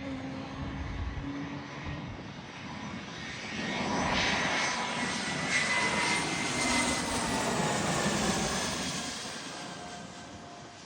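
Air Canada Rouge jet airliner passing on its landing approach. The engine noise and whine swell to a peak in the middle, then fade away, the whining tones sliding slowly lower as it goes by.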